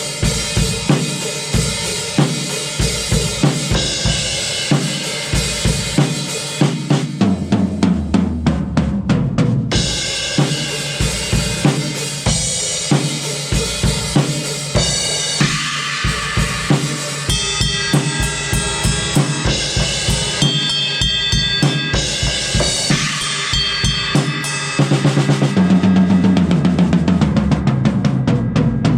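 A seven-piece double-bass-drum kit (early-80s Pearl Export) played in a heavy metal style: a steady run of bass drum strokes under snare hits and crashing cymbals. It gets louder and busier about 25 seconds in.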